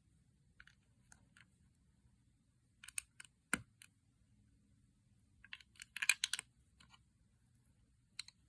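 Plastic Lego bricks clicking as pieces are handled and pressed together: scattered single clicks, a sharper one a few seconds in, and a quick flurry of clicks about six seconds in.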